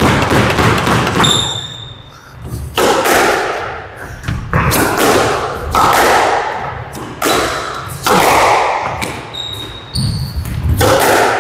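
A squash rally: a string of sharp racket-and-ball hits, with the ball striking the walls, about every second and a half. Each hit rings out in the enclosed court. There are a few brief high squeaks, typical of court shoes on the wooden floor, about a second in and again near the end.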